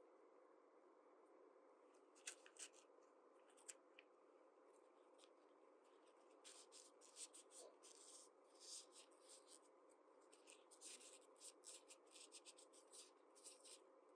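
Faint quick scratching and rustling strokes of toy-set packaging and small parts being handled: a few scattered strokes early, then near-continuous from about six seconds in.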